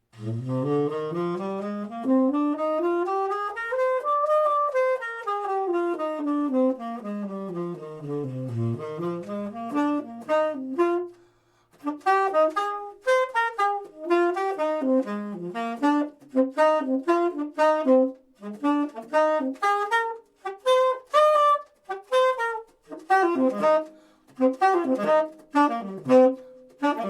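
Solo saxophone improvising on the Bb Mixolydian scale. It climbs the scale and comes back down over about two octaves, then, after a brief pause, plays quick phrases of short, detached notes.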